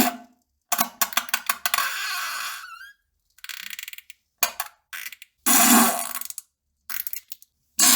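A run of fart sounds with short silences between them. The first, about a second in, is a sputtering one lasting about two seconds; shorter blasts and pops follow, and another long one starts near the end.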